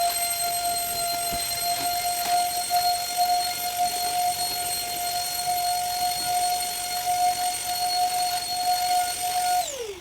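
Handheld UV bed-and-sofa vacuum cleaner running with a steady high whine over a rush of air. Near the end it is switched off and the motor winds down, its pitch falling.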